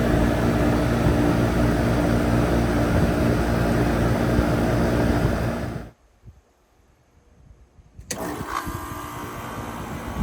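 Air conditioner running with a loud steady hum that cuts off suddenly about six seconds in. About two seconds later another unit starts with a click, then a quieter steady hum with a thin high whine.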